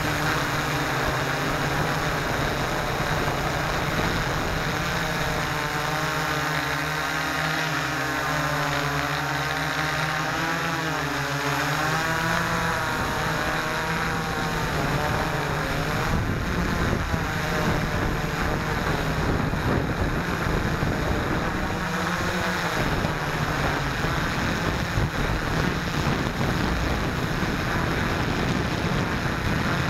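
Hexacopter's electric motors and propellers whining, heard from the onboard camera, with wind buffeting the microphone. The pitch wavers up and down for several seconds partway through.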